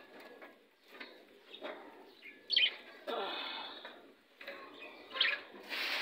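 Small caged parrots chirping: two short sharp chirps, about two and a half seconds in and again near the end, with a rustle between them.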